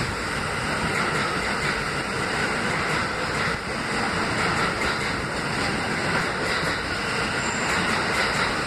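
Kawasaki R160B subway train pulling into the station and running past along the platform: a steady noise of wheels on the rails, with faint clicks.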